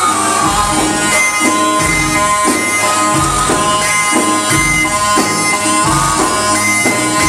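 Live Egyptian sha'bi wedding band music: a reedy, wind-like lead melody over a steady bass beat, with frame drum and brass in the band.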